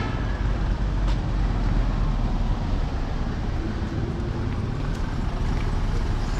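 Steady road-traffic noise: a constant low rumble of passing vehicles with no single engine standing out.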